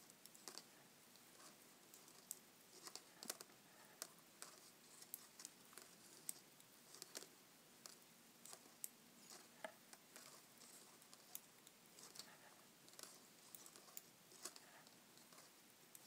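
Faint, irregular clicks and taps of metal Addi Lace knitting needles touching as stitches are purled, about one or two clicks a second.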